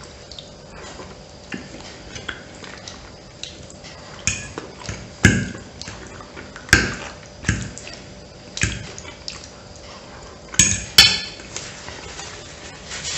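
Close-up eating sounds: wet chewing and lip-smacking of sauce-covered pasta, broken by a few sharp clinks of a metal fork against a ceramic plate, two of them in quick succession near the end.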